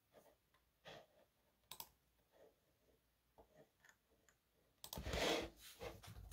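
Faint scattered clicks, then a louder scuffing noise for about a second near the end.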